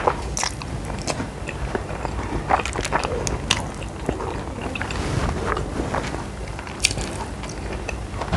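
A person chewing food, with irregular small clicks and smacks several times a second.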